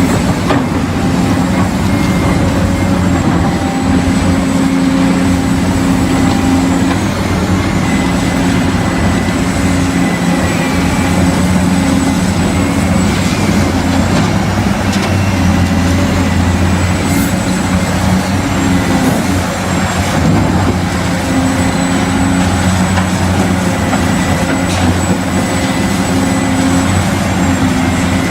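A steady, loud engine-like drone, like a heavy truck running, with a constant pitch and a faint high whine above it, going unbroken throughout.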